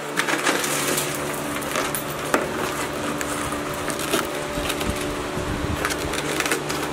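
Shattered tempered car-window glass crackling and crunching as a gloved hand presses on it and breaks it away from the frame: a string of irregular small cracks and crunches over a steady background hum.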